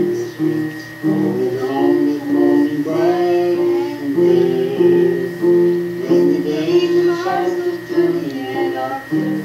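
A woman singing a gospel song with instrumental accompaniment.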